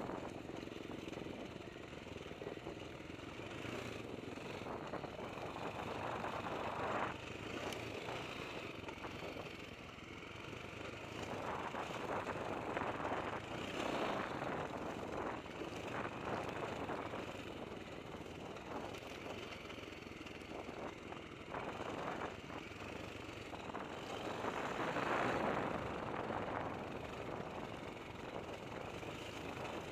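Dirt bike engine ridden over rock, heard from a helmet-mounted camera, rising and falling with the throttle and swelling loudest about a quarter of the way in and again near the end.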